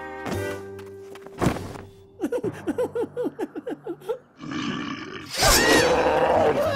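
Cartoon soundtrack of background music with sound effects. There is a sharp hit, then a quick run of about ten short falling chirps, then a loud hit followed by a creature-like roaring cry.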